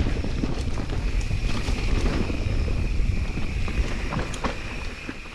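Electric mountain bike rolling down a dirt trail: wind buffeting the microphone, tyres running over dirt and small stones, and scattered clicks and knocks from the bike over bumps. It gets quieter near the end.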